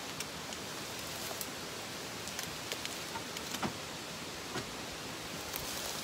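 Tyres of an Ezgo TXT 48V electric golf cart rolling over dry leaves and twigs, with irregular crackles and snaps over a steady hiss; no motor whine stands out.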